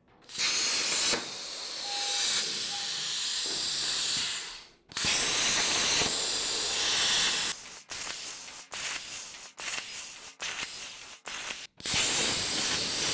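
CNC plasma cutter torch cutting thin sheet steel: a loud, steady hiss from the plasma arc. The hiss breaks off briefly about five seconds in, then stops and starts in short bursts for several seconds before running steady again near the end.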